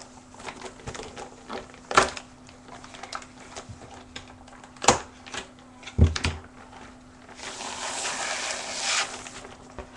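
Clear plastic packaging around a sheet of skateboard grip tape being handled: crinkling with sharp crackles and snaps, the loudest about two, five and six seconds in, then a longer rustling hiss for a second or two near the end as the sheet is worked in its sleeve. A faint steady hum runs underneath.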